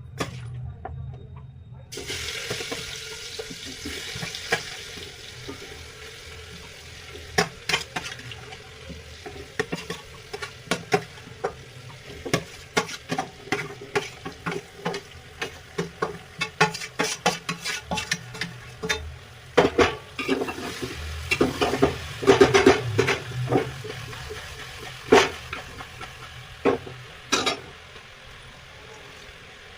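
Food frying in a pan, sizzling steadily from about two seconds in, while a spoon stirs it, knocking and scraping against the pan many times through the middle, most heavily about two-thirds of the way through.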